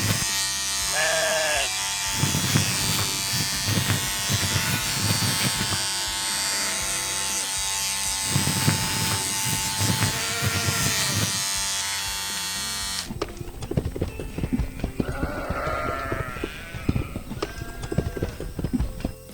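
Cartoon sound effects: a steady buzzing engine with short animal calls over it. The buzz drops away about 13 seconds in, leaving the calls.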